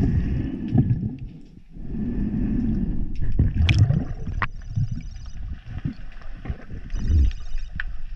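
Underwater sound: uneven surges of water noise from the swimmer's movement, with scattered clicks and a faint steady high-pitched ringing in the water whose source is unknown.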